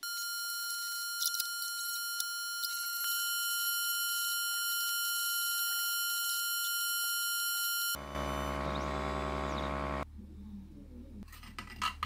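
Laser engraver running with a steady high-pitched whine and a few faint clicks. About eight seconds in it gives way to a louder, low buzzing hum for about two seconds.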